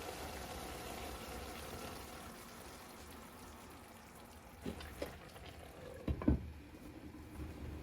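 Food frying in a pan, a steady sizzle that dies down over the first few seconds, then a few short knocks, the loudest about six seconds in.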